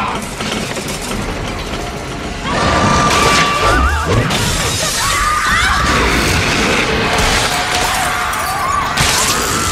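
Horror film soundtrack: tense music that swells suddenly about two and a half seconds in, layered with crashes and shattering glass as light bulbs burst.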